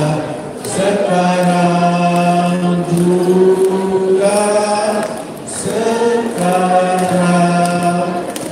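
A group of people singing a song together without accompaniment. The phrases are made of long held notes, with brief breaks for breath about half a second in and again past five seconds.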